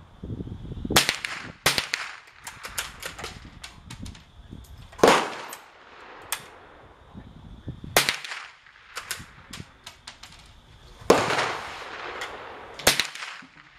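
.22 rimfire gunshots from more than one gun: a rapid, irregular string of sharp cracks, a couple of dozen in all. Louder, closer shots come every few seconds among quieter ones, the loudest with a short echo after.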